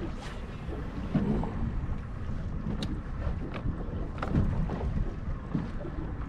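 Wind buffeting the microphone and water noise aboard a small fishing boat, with several short clicks and knocks.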